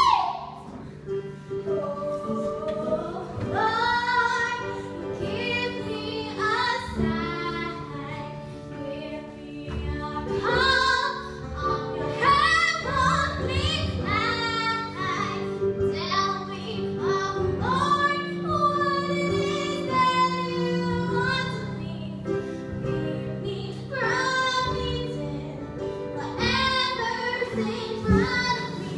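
A girl's solo voice singing a musical-theatre number over instrumental accompaniment, with long held notes that waver in pitch.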